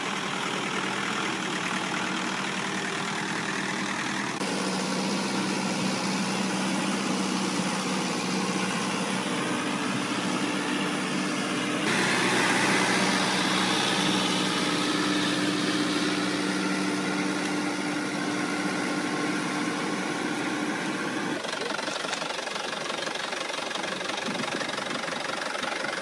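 Mahindra farm tractor's diesel engine running steadily, its note changing abruptly a few times.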